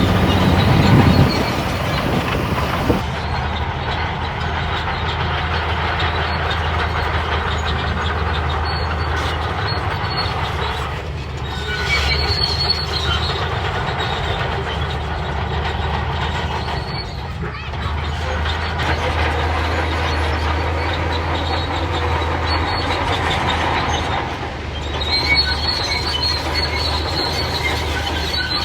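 Shantui crawler bulldozer working, its diesel engine running steadily under the high squealing and clanking of its steel tracks.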